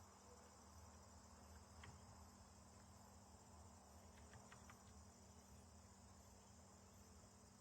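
Very faint, steady, high-pitched insect chorus like crickets, with a few faint clicks about two seconds in and again around four to five seconds in.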